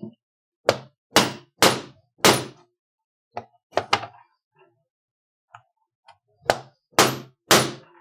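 A poly mallet strikes a steel punch, driving it through belt leather onto a poly cutting board to cut the belt tip. Four hard blows come in the first couple of seconds, then a few lighter taps around the middle, then three more hard blows near the end.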